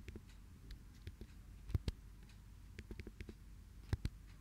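Laptop keys being tapped: irregular single clicks, with a louder click a little under two seconds in and a quick louder pair near the end, over a faint low hum.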